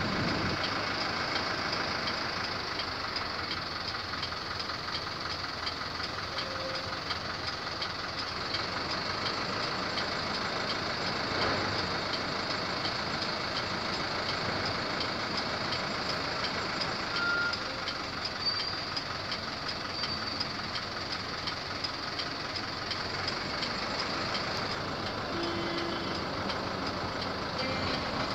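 Steady outdoor background noise at a harbour waterfront: an even hiss with no distinct events, and a few faint brief tones.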